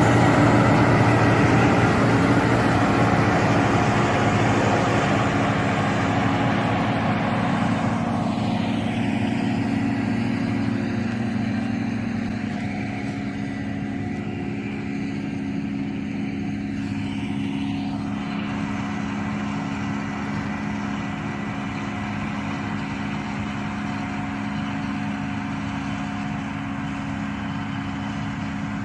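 John Deere self-propelled windrower's diesel engine running steadily while its header mows grass, fading over the first dozen seconds as the machine moves away, then holding steady.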